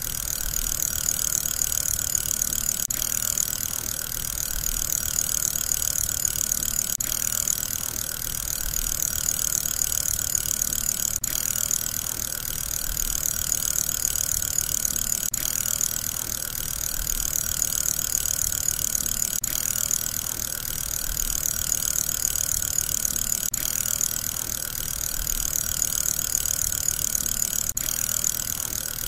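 Steady high whirring of a spinning fidget spinner, swelling and dipping about every four seconds with a faint tick at each repeat, as from a looped recording.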